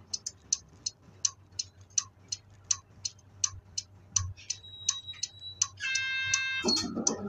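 A city bus's turn-signal relay ticking steadily, about three clicks a second. A faint high steady beep comes near the middle, then a short electronic chime about six seconds in, followed by a louder noise at the very end.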